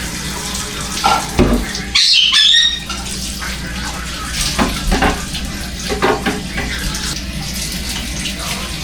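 Kitchen tap running steadily into a sink, with scattered knocks and clatter of things being handled in the water. About two seconds in there is a louder clatter with a brief high squeal.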